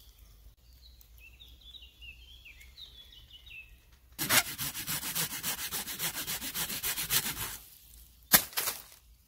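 Small birds chirping faintly, then from about four seconds in a hand saw rasping steadily through birch wood for about three seconds, followed by a single sharp knock and a short rustle.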